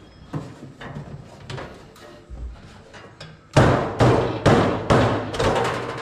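Faint clicks and rubbing, then from just past halfway a run of loud knocks and bangs, about two a second: the microwave's sheet-metal outer cover being knocked loose and pulled off its casing.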